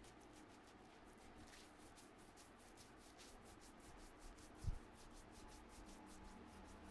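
Faint, quick rubbing strokes of a barber's hands massaging skin and hair, several a second, with one soft low thump about two-thirds of the way through.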